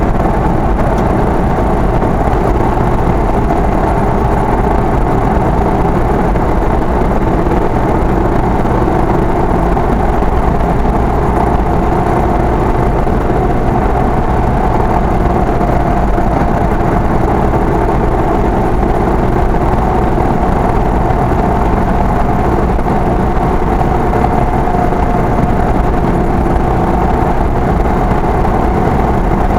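Car engine and road noise heard from inside the cab while cruising at a steady speed: a constant hum with no change in pace.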